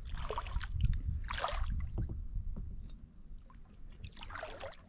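Kayak paddle strokes through calm water, a swish of water with each stroke about once a second, growing quieter in the last couple of seconds.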